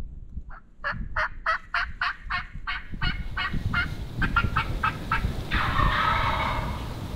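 A hunter's turkey call sounding a quick, evenly spaced series of about eight loud notes, then fainter notes. About five and a half seconds in, a wild turkey gobbler answers with a gobble.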